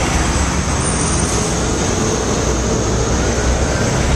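Steady road traffic, cars and trucks running past close by, with a deep rumble under it.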